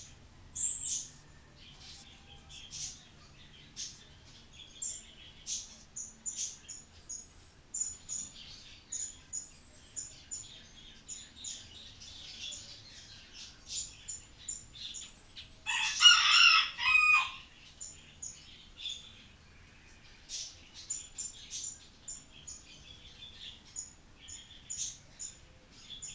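Whiteboard marker squeaking and scratching on a whiteboard in many short strokes while a drawing is made. About two-thirds of the way through, a loud pitched call lasts about a second and a half.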